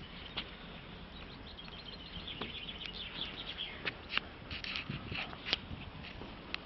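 Small birds chirping in quick short calls, with a few sharp clicks among them.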